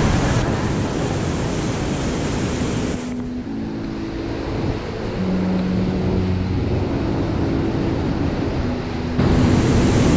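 Steady rush of flowing river water, which drops in level abruptly about three seconds in and comes back up near the end. A few faint held tones sound over it in the middle.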